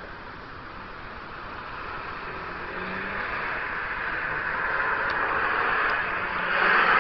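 Noise of a road vehicle, like a car approaching, growing steadily louder and loudest near the end.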